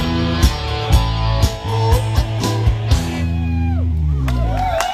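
Live rock band with electric guitars, bass and drums playing the last bars of a song. The drums stop about three seconds in, leaving a held final chord whose pitch slides down before cutting off near the end.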